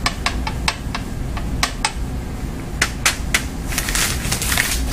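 Quick, even taps on a rolled-up paper weighing tube, about six a second, shaking the dry solid into a vial; the run stops about a second in and a few single taps follow. Near the end, paper crinkling as the emptied weighing paper is handled.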